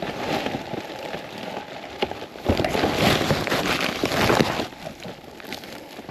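Crunching and scraping in deep snow, a dense crackling that is loudest for a couple of seconds in the middle.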